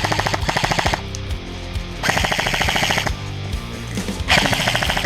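Airsoft gun firing on full auto in three rapid bursts: one carrying on to about a second in, one from about 2 to 3 seconds, and one near the end.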